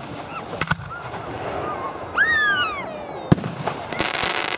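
Aerial fireworks shells bursting: a quick pair of bangs about half a second in and a sharper report past three seconds, then a rapid crackling of many small reports near the end. Around two seconds in, a high whoop falls in pitch over the background noise.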